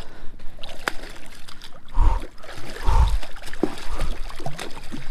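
A big redfish (red drum) thrashing and splashing at the surface beside a kayak while hooked, with two heavy thumps about two and three seconds in.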